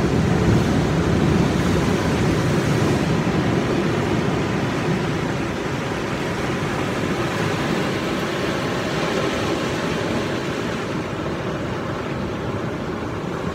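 Steady wash of sea surf on a rocky shore, a continuous even rush with no distinct events.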